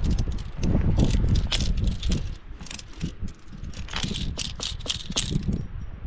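Metal climbing gear clinking and jangling in quick, irregular clicks: nuts and carabiners on a rack being handled while a nut is placed for extra protection.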